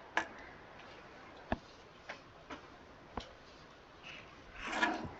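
Quiet room tone broken by a few irregular small clicks and taps, and a brief soft murmur near the end.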